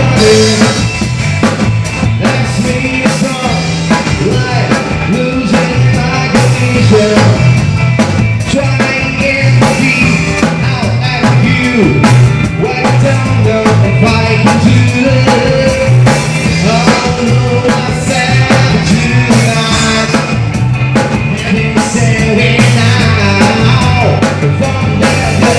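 Rock band playing, with drum kit, bass and a sung line over the top.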